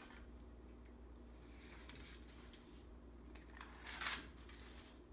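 A strip of tape backing being peeled off, one brief tearing noise about four seconds in, with only faint room noise before it.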